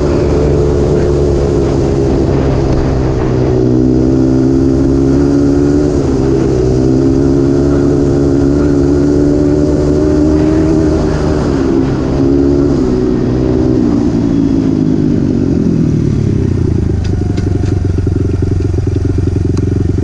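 Honda 100 dirt bike engine running hard, its pitch wavering with the throttle; about three-quarters of the way in the revs fall away and it runs on at low revs, with a few sharp clicks near the end.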